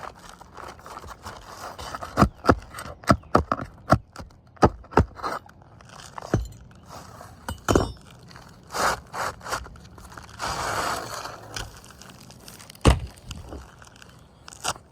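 Irregular sharp knocks, clicks and scraping from hands and tools working on roof shingles during a repair, with a longer scrape about ten seconds in.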